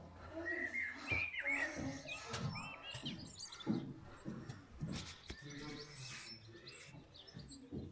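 Small birds chirping: a run of short calls that rise and fall in pitch in the first few seconds, then fainter chirps later.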